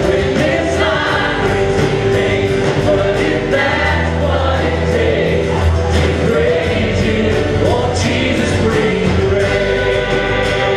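Church praise band and choir singing a worship song together, with acoustic guitar and full band accompaniment at a steady loud level.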